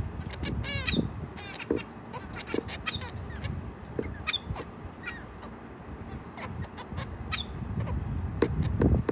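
Zebra finches calling: short nasal chirps scattered through, with a quick run of calls about a second in.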